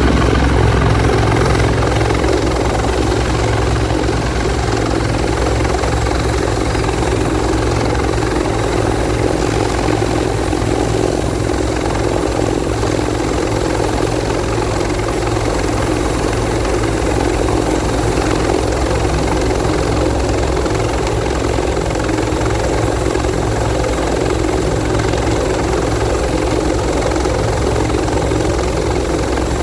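Bell 412EP helicopter running steadily, its twin turbine engines and rotor making a loud, continuous sound, a little louder in the first second or two.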